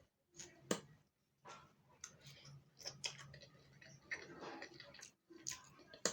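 Close-miked eating sounds: a string of sharp, irregular clicks and soft wet smacks as food is taken and eaten.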